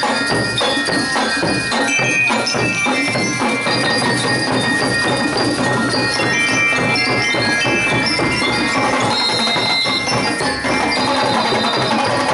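Marching band playing: bell lyres ring out a melody over a steady beat of snare and bass drums.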